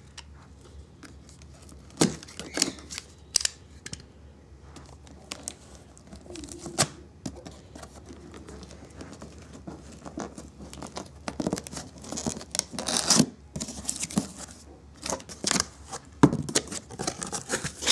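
A cardboard shipping box being opened: packing tape cut and torn, with scattered scrapes, rips and cardboard rustling that get busier over the second half.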